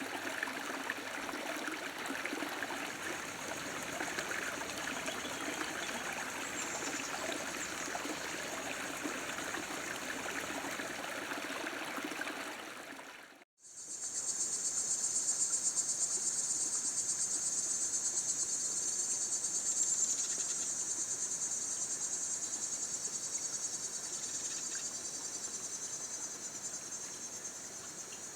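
Water of a small stream running steadily. About halfway through, the sound cuts to a steady, high-pitched trill of insects.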